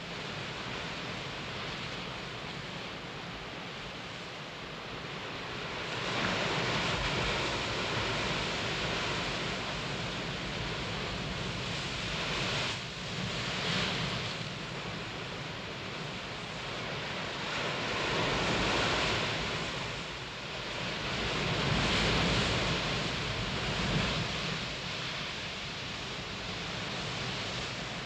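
Sea surf breaking, a steady rush of water that swells louder every few seconds as waves come in.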